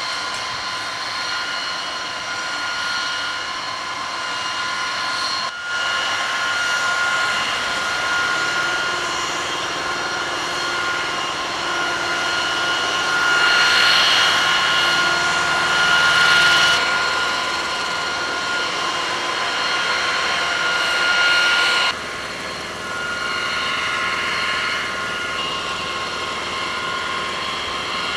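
Steady high-pitched whine of jet turbine engines over an even rushing noise. It swells louder around the middle and shifts abruptly twice.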